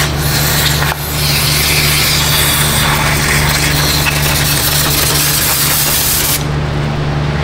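Aerosol spray can hissing in a long spray, with a short break about a second in, cutting off suddenly about a second before the end. A steady low hum runs underneath.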